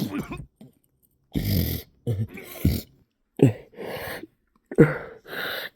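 A man groaning and gasping in pain after an electric shock: four short bursts, each a falling groan that trails off into a breathy gasp.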